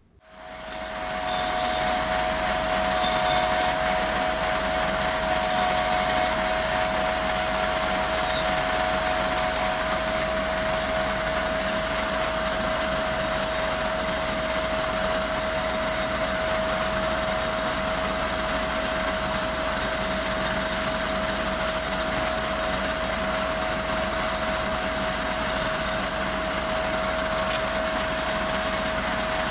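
A workshop power tool's electric motor switches on, spins up over about a second and then runs steadily with a constant whine.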